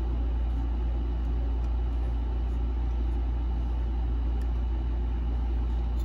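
A steady low hum, with a few faint ticks as a small screwdriver turns the screw holding an M.2 SSD down to the motherboard.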